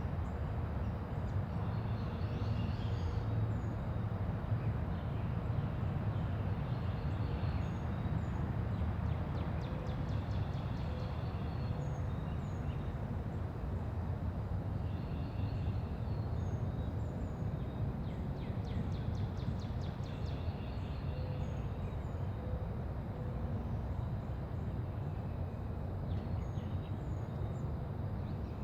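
Quiet residential neighbourhood ambience: a steady low rumble of distant traffic, with small birds chirping here and there and two rapid chattering trills, about a third and two-thirds of the way through.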